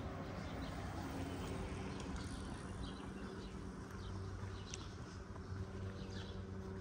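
An engine running steadily with a low hum, and short high chirps every so often.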